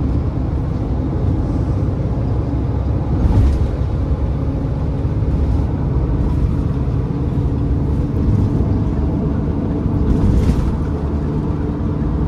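Steady low rumble of a minibus's engine and tyres on the road, heard from inside the passenger cabin, with two brief rushes of noise about three and a half and ten and a half seconds in.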